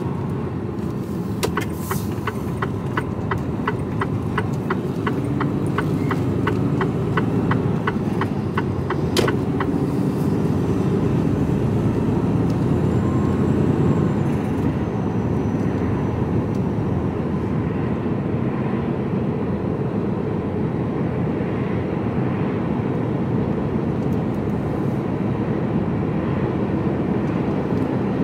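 Inside an HGV lorry cab: the truck's diesel engine and road noise running steadily. For the first several seconds the turn indicator ticks, about two to three ticks a second, with a single sharper click about nine seconds in.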